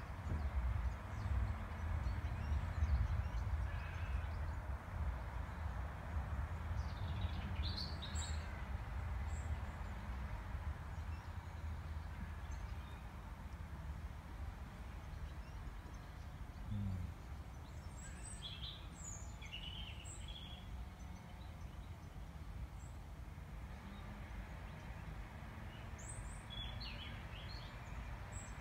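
Outdoor garden ambience: small birds chirping in short scattered calls, a few about a quarter of the way in and more in the second half, over a steady low rumble that fades somewhat after the first half.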